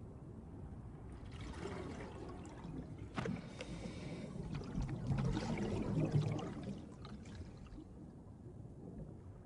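Underwater water noise: a rushing, gurgling wash that swells through the middle and fades near the end, with one sharp click about three seconds in.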